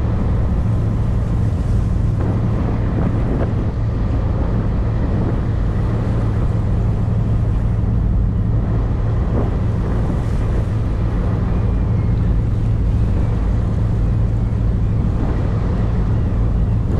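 A motorboat's engine running steadily with a low hum, mixed with water rushing past the hull and wind buffeting the microphone.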